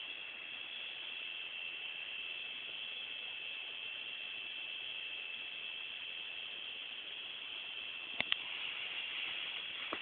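Steady, high-pitched chorus of singing insects, a continuous shrill buzz that holds the same pitch throughout. Two short clicks near the end.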